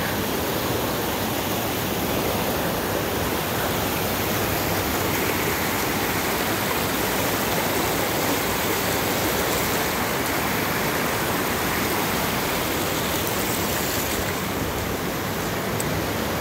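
A shallow river rushing over stepped rock ledges and small cascades, a steady, even rush of water.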